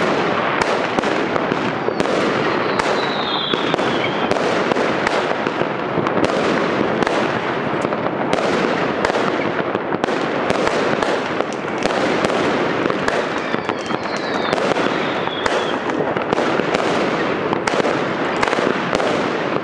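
A dense, continuous barrage of fireworks: many overlapping bangs and crackles from aerial shells and firecrackers, with a short whistle about three seconds in and again around fifteen seconds.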